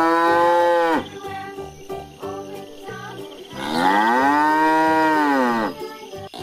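Cow mooing twice: the end of one long moo that falls off about a second in, then a second long moo of about two seconds that rises, holds and drops away.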